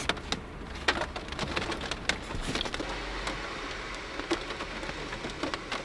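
Steady rain falling on the roof of a campervan, heard from inside, with a few light clicks and taps as small items are handled nearby.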